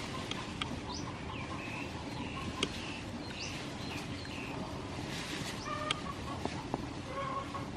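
Chickens clucking in short scattered calls over a steady background hum, with a few sharp clicks.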